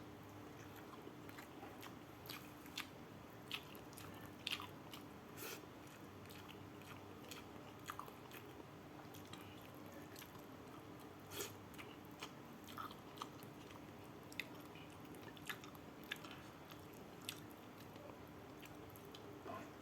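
A person chewing and eating rice with sambal close to the microphone: faint chewing with irregular soft clicks from the mouth.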